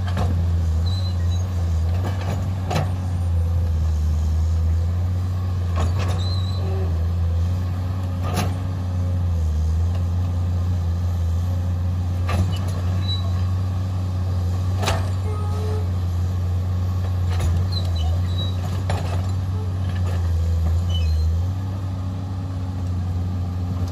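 Komatsu PC210-8 excavator's six-cylinder diesel engine running while the machine digs, its steady drone dipping and rising in pitch a few times as the load changes. Occasional short sharp knocks from the working bucket and arm.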